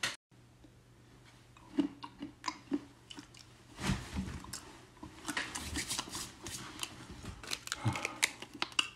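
Chewing and crunching of hot-pepper-coated nuts: a string of irregular small crunches and clicks starting about two seconds in, over a faint steady low hum.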